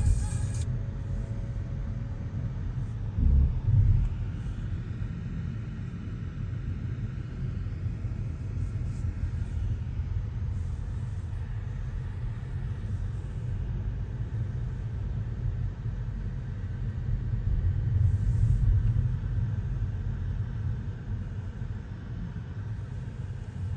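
Low, steady rumble of a car's engine and tyres heard from inside the cabin while driving slowly, with two thumps a little over three seconds in.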